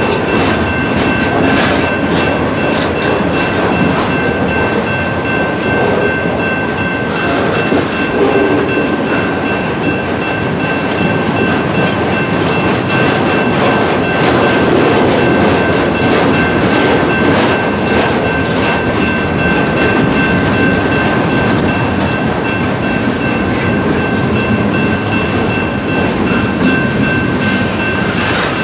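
Loaded freight flatcars rolling steadily past, a continuous rumble with the clicking of wheels over rail joints. A railroad crossing bell rings throughout at a steady high pitch.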